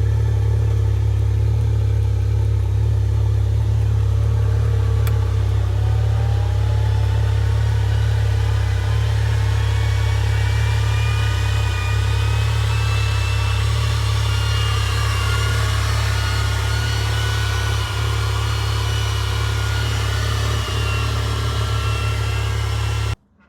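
Can-Am Maverick X3 Max UTV being driven, its engine running under a steady low rumble, with a whine that climbs slowly in pitch through the middle. The sound cuts off abruptly near the end.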